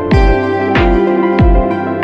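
Background music with a steady beat: sustained held chords over a low pulse about every two-thirds of a second.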